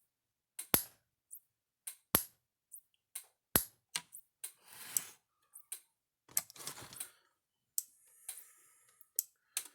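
Kencove EKD3 electric fence charger's output pulse jumping a small spark gap: a sharp snapping pop about every 1.4 seconds, with lighter clicks and handling noise between.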